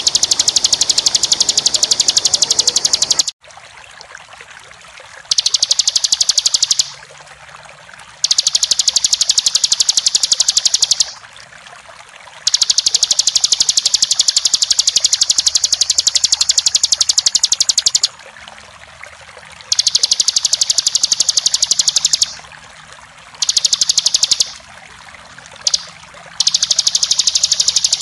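Bar-winged prinia (ciblek) singing in long, very rapid high trills, the continuous 'ngebren' song used to train captive birds. There are about seven bouts of one to five seconds each, broken by short pauses, over a faint hiss of running water.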